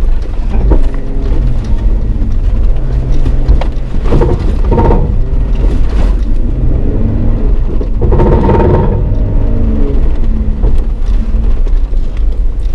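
Off-road 4x4's engine revving up and down under load on a rough sandy track. About four and eight seconds in there are louder stretches of knocks and rattles as it goes over bumps.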